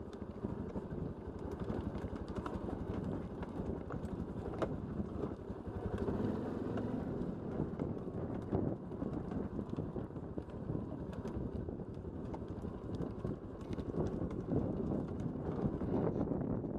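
ATV engine running at low speed on a rough downhill dirt track, with scattered clicks and knocks from the ride over the terrain.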